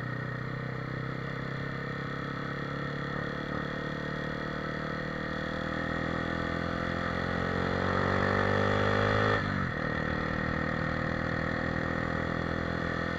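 Motorcycle engine under way, its note climbing steadily in pitch and getting louder as it accelerates. About nine seconds in the pitch drops sharply, and the engine then runs on at a steady note.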